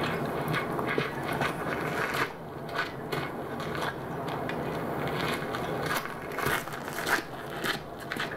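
Klipsch The ONE II Bluetooth speaker playing a sound-effects demo recording: a busy stream of irregular clicks over a steady noisy background, with no speech or music.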